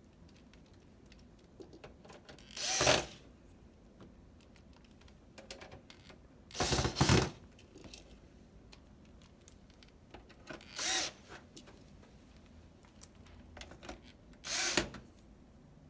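Screws being driven back into a PS4's casing during reassembly: four short mechanical bursts of about half a second each, spaced about four seconds apart.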